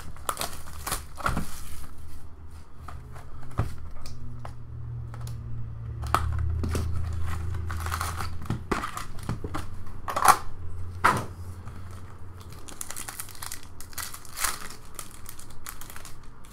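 Hands unwrapping and opening a sealed Upper Deck trading-card hobby box and its foil packs: crinkling and tearing of wrapper and cardboard, with many short sharp snaps, the loudest about ten seconds in.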